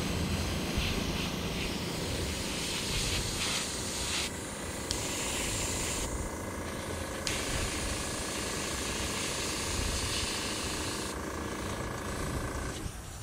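Airbrush spraying paint, a hiss of air and paint that cuts off and restarts three times as the trigger is released, over a steady low rumble. The flow is uneven, which is blamed on the Master Airbrush.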